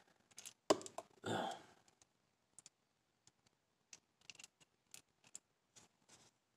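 Faint, scattered clicks of small metal nitro-engine parts handled with tweezers as the piston and connecting rod are turned around and refitted, with a sharper click just under a second in and a brief louder sound soon after.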